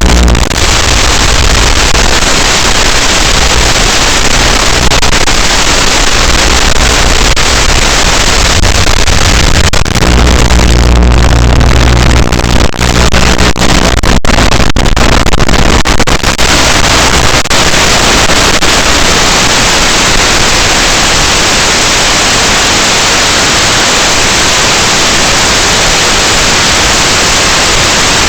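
Loud steady hiss like static, with low steady tones beneath it through the first half that fade out after about eighteen seconds, leaving only the hiss.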